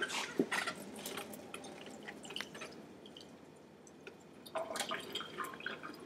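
Leftover cooking water dripping and trickling out of a lidded bowl of microwaved rice into a sink, with light clicks of the bowl and lid. It comes in two busier spells, one just after the start and another about four and a half seconds in.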